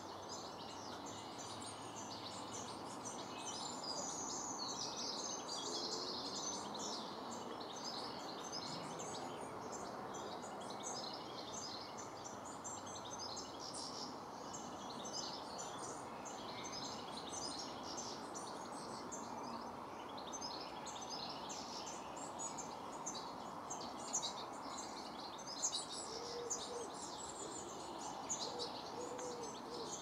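Garden birds chirping and singing, many short overlapping calls throughout, over a steady background hiss.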